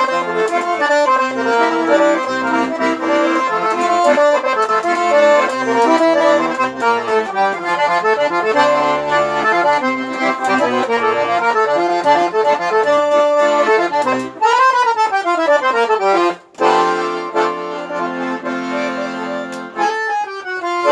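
Accordion (sanfona) playing a forró instrumental passage: a busy melody over bass notes. About fourteen seconds in it plays a quick descending run, then after a brief break it holds sustained chords.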